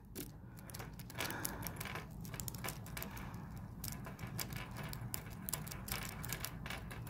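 City rake lock pick rocked in and out of the pin stack of a cheap Brinks padlock under tension: a quiet, irregular run of rapid small metallic clicks and scrapes as the pins are raked.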